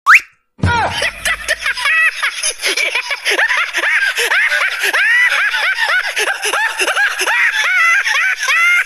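High-pitched laughing sound effect: a rapid string of squeaky giggles that rise and fall, preceded by a brief rising whistle at the very start.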